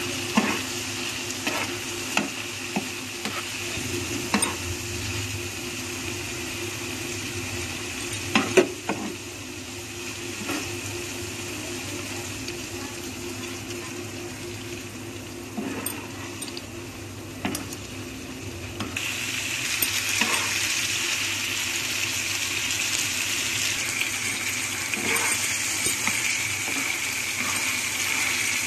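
Chicken frying in oil on a tawa, sizzling steadily, while a steel spatula stirs it with scrapes and sharp clicks against the pan. About nineteen seconds in, the sizzling gets louder and hissier.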